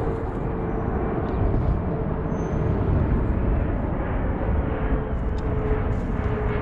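An airplane flying over: a steady engine drone with a low rumble, and a faint tone that slowly falls in pitch as it passes.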